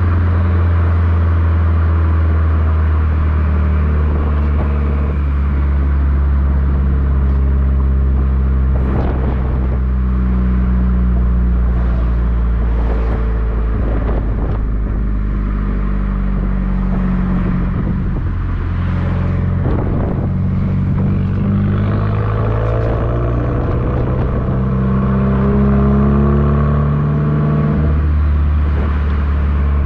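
Subaru WRX's turbocharged flat-four running through an ETS cat-back exhaust, heard close up at the rear bumper while driving: a steady low drone whose pitch rises and falls gently with engine speed.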